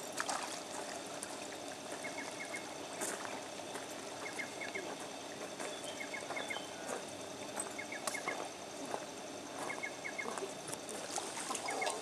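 Shallow pond water sloshing and trickling around a person's legs as they wade and drop fish food in, with a few sharp splashes or clicks. Through it runs a series of short high chirps in quick groups of three to five, repeating every second or two.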